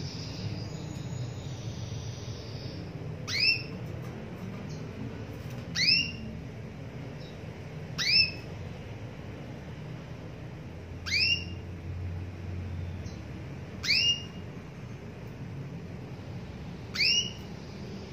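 Female domestic canary calling: six short, sharply rising calls, one every two to three seconds. This is the call a female uses to draw a male, used here to coax a male canary that has gone quiet back into song.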